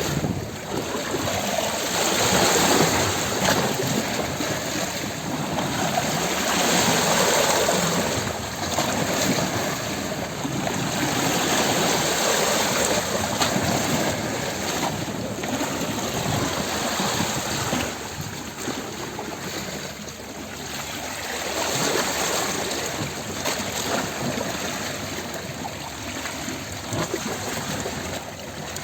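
Ocean waves: a continuous wash of surf that swells and eases every few seconds.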